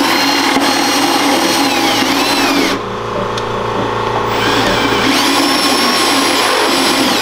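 Electric drill boring a hole for a brake-line bulkhead fitting, its motor whine rising and falling with the trigger. It eases off about three seconds in, speeds up again, and cuts off near the end.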